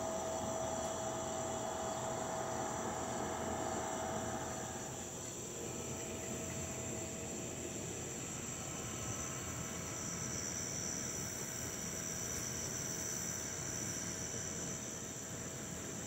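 Night insects trilling steadily in a high continuous chorus, with a lower buzz underneath that stops about four and a half seconds in.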